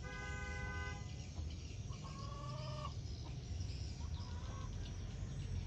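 Chicken calls: a held call in the first second, then a bending cluck about two seconds in, over a low steady rumble.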